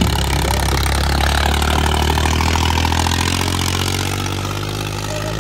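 A farm tractor's diesel engine running hard under load, pulling a disc harrow through loose soil. It is a steady low engine note with a fast rattle over it, easing slightly toward the end.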